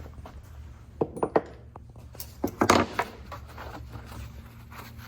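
A few short knocks and clatters of hand tools and small metal engine parts being handled on the workbench, with a louder cluster of knocks about halfway through, over a steady low hum.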